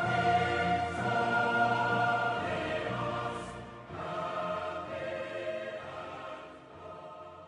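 Outro music of long held chords, changing to a new chord about four seconds in and growing quieter toward the end.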